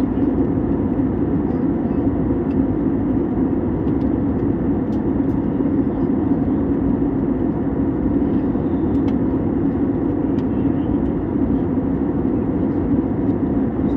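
Steady drone of an airliner's engines and rushing air heard inside the cabin, a constant low hum that neither rises nor falls.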